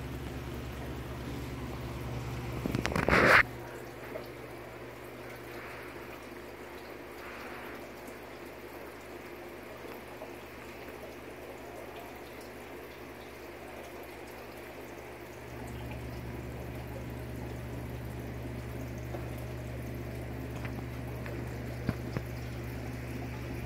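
Aquarium equipment running: a steady trickle of water under a low hum from the tank's pump and filter. About three seconds in, a louder noise builds for about a second and cuts off suddenly, and the hum gets louder about halfway through.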